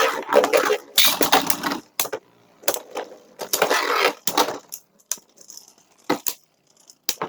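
Beyblade spinning tops launched into a plastic stadium and clashing: a dense scraping clatter for the first couple of seconds, then two shorter spells of clattering and a few separate sharp clicks as the tops knock together and hit the stadium walls.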